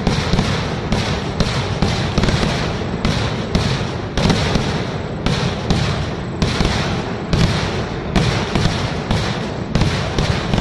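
Festival fireworks display going off in a continuous barrage: a rapid, irregular string of bangs over constant crackling, several reports a second.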